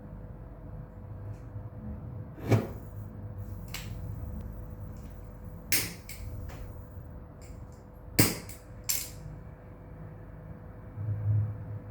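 Several sharp knocks and clicks of hard objects being handled and set down, the loudest two about two and a half and eight seconds in, over a low steady hum.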